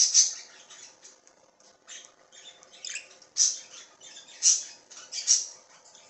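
Budgerigars chattering: a string of short, harsh chirps and squawks, loudest right at the start and three more times in the second half.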